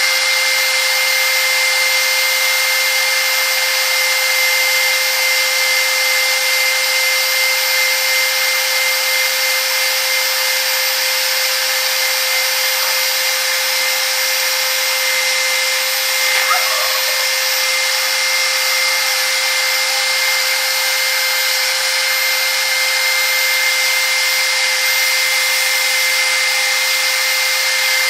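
A handheld power tool running at a steady speed with a constant high whine and abrasive rasp, sanding the scratches out of the friction surface of a Yamaha Axis 90 scooter's clutch bell.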